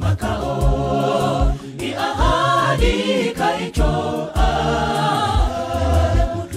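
Gospel song sung by a group of voices in harmony, over a beat of repeated low bass notes.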